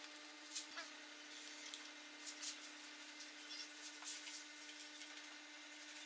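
A few faint taps and light rubbing of wood as a wooden birdhouse is handled on a workbench, over a steady low hum.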